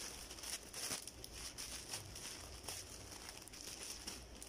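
Plastic packaging bags rustling and crinkling faintly as they are handled, in irregular short crackles.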